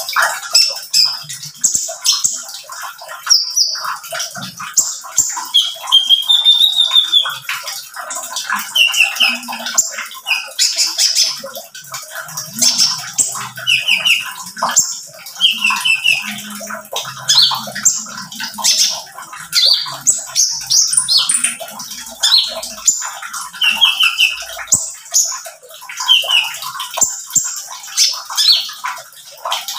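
A caged male kolibri ninja (van Hasselt's sunbird) singing a rapid, busy string of high, sharp chirps and short trills, repeated without pause.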